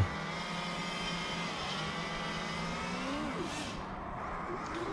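Racing quadcopter's BrotherHobby Returner R5 2306 brushless motors spinning Cyclone 5051 props, heard from the on-board camera as a steady whine, with the pitch sliding up and down briefly as the throttle changes, about three seconds in and again near the end.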